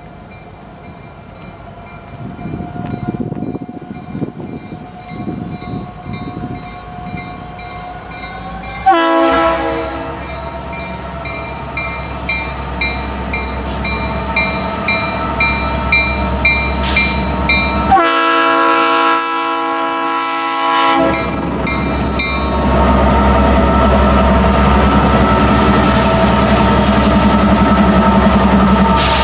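A Norfolk Southern freight train led by a GE Dash 9-40CW diesel locomotive approaches and passes a grade crossing, its air horn sounding a short blast about nine seconds in and a longer, louder blast about two-thirds of the way through. The locomotives then rumble past, with wheels clicking over the rail joints, while the crossing bell dings steadily about twice a second.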